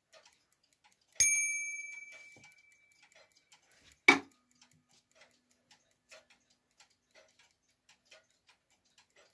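Small clock bell struck twice, about three seconds apart: the first strike rings and fades over about two seconds, the second dies away quickly. Under it the movement's platform lever escapement ticks faintly and steadily, about two to three ticks a second.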